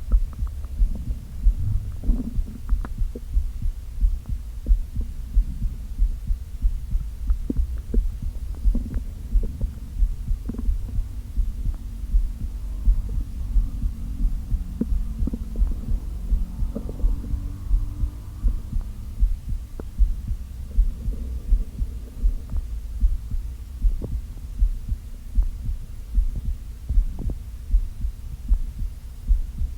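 Empty, hungry stomach recorded up close: a steady, pulse-like low thumping with gurgling and growling rumbles over it, most of them in the middle.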